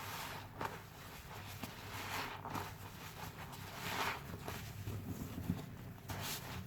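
Sponge soaked with foam and fabric softener squeezed again and again by hand: a run of irregular wet, foamy squishes, some stronger than others.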